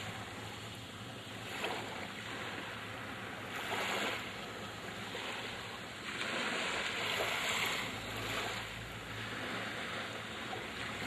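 Small waves lapping and washing onto a sandy beach in a calm bay, a soft wash rising every two to three seconds.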